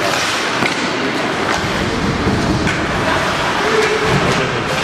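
Ice hockey game in play in an arena: a steady rush of noise from skates on the ice and the crowd, with faint voices and a few sharp clicks.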